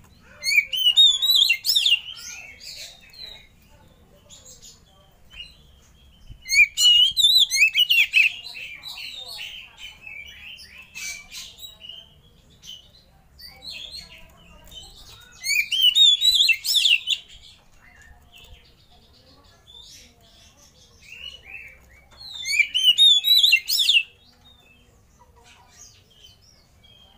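Oriental magpie-robin (kacer) singing in four loud bursts of fast, varied notes, with softer calls between them.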